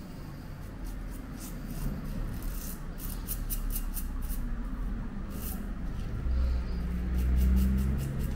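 Safety razor scraping through lathered beard stubble in a series of short strokes, each a brief rasp, coming thicker and faster near the end.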